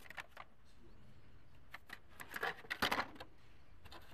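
Carded Hot Wheels blister packs clicking and crinkling as a hand pulls them from the rack and flips through them. The clatter comes in short runs and is loudest a little under three seconds in.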